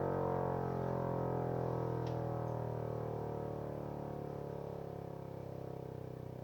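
Vixen Horns VXS-1200MBR siren winding down: a low, rich tone sliding slowly lower in pitch and fading as the siren coasts toward a stop.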